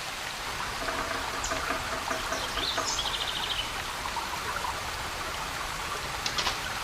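Steady rushing of flowing water, with birds calling over it: a rising chirp and a quick trill of repeated high notes about halfway through.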